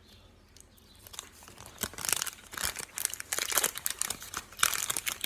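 Plastic fruit-snack packet crinkling and rustling as a hand digs in to pick out a piece, starting about a second in and getting busier toward the end.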